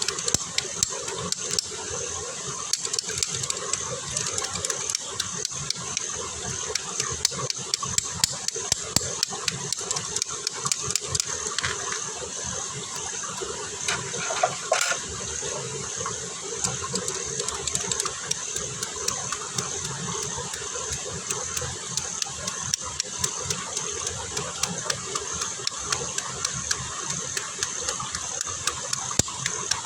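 Squirrel meat cooking: a steady sizzling hiss with dense, irregular crackles and pops.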